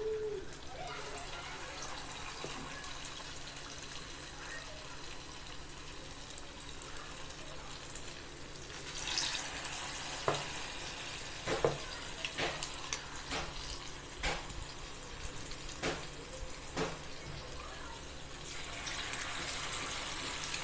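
Balls of idli-batter bonda frying in hot oil in a small aluminium pan: a steady sizzle with scattered sharp pops, growing louder about nine seconds in and again near the end.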